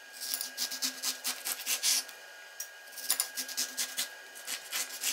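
Kitchen knife sawing through a peel-on lemon on a wooden cutting board, cutting it into rounds: two runs of quick rasping strokes with a short pause between them.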